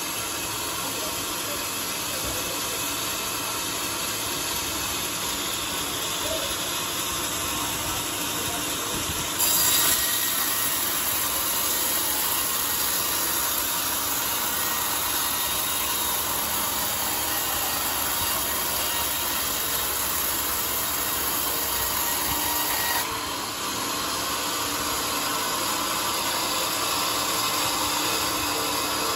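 Homemade band sawmill running with its blade cutting lengthwise through a large teak log: a steady, noisy hiss of the blade in the wood over the drive. It gets louder and brighter about a third of the way in and eases back slightly about two-thirds in.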